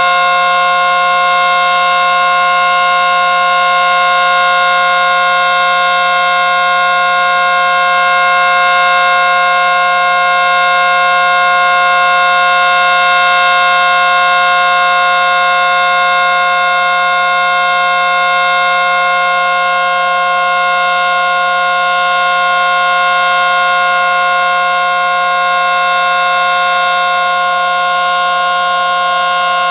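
ACA Screamer outdoor warning siren sounding a loud, steady tone that holds one pitch throughout. The siren is reverse wired but still very loud.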